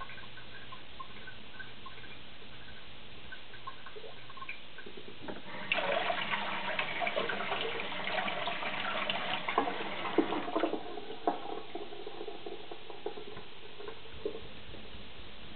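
Water splashing and running for about five seconds, starting about six seconds in, with faint ticks before and after.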